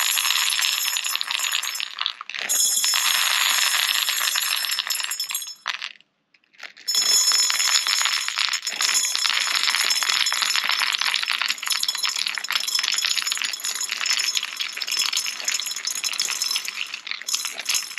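Plastic 6 mm airsoft BBs rattling and clicking in a hand-held machined aluminium sizing gauge as it is shaken, many dropping through the 5.95–5.98 mm holes into a cardboard box below. A dense, continuous clatter that stops briefly about six seconds in. So many passing through is the sign that these BBs measure about 5.95 mm or smaller.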